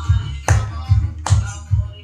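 Gujarati song playing, with a heavy bass beat at about two and a half beats a second.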